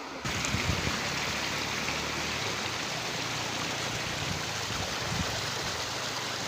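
Rushing water, a steady, dense rush that comes in suddenly just after the start and holds without letting up.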